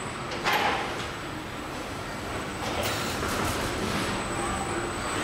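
Car assembly-line factory noise: a steady mechanical din with two short hisses, about half a second in and near three seconds, and a thin high-pitched whine in the second half.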